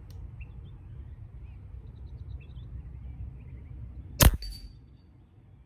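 A single shot from a Beeman Commander PCP air rifle in .22 (5.5 mm) firing a 25-grain H&N slug: one sharp crack about four seconds in, over a steady low rumble.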